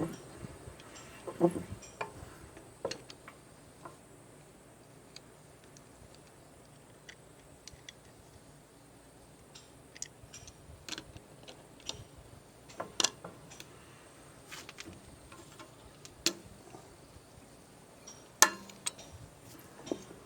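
Scattered light metallic clicks and taps of hand tools working at an old ratchet head to pry it open, with a few louder knocks, one about a second and a half in and others near the middle and toward the end.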